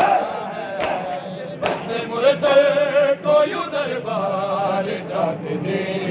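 A large group of men chanting a mourning chant together during matam, with loud slaps of hands on their chests keeping time about every 0.8 s in the first two seconds, after which the many voices of the chant carry on.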